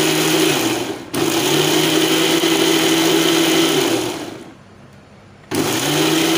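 Preethi mixer grinder with its small steel jar grinding mango pieces and cardamom to a paste, run in pulses: its motor hums steadily, cuts out briefly about a second in, runs again, winds down to a stop around four seconds in, and starts up once more near the end.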